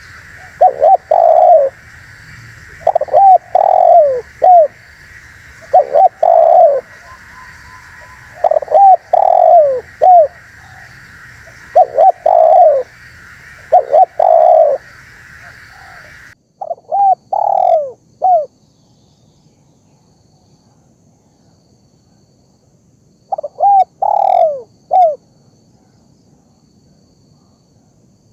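Spotted dove cooing: repeated phrases of a few short, falling coos every two to three seconds, played as a lure call. A steady background hiss behind the calls cuts off suddenly partway through, and the calls pause for a few seconds before one more phrase near the end.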